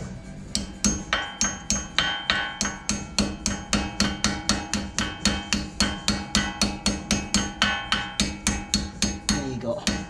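Claw hammer tapping a brake pad retaining pin into the front caliper of a 2001 Mercedes-Benz ML430, metal on metal. Light, even strikes come about three a second, each ringing briefly, with a short pause near the end as the pin seats in its hole.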